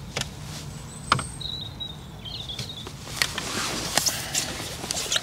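Handling noise as the angler works the landing-net pole and shifts on his seat box: scattered light clicks and knocks with rustling, busier in the second half. A faint high wavering whistle sounds briefly near the middle.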